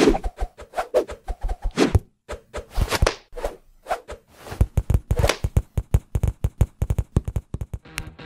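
A quick, irregular run of short cartoon sound effects: clicks, taps, thwacks and a few whooshes, some with a brief pitched ring.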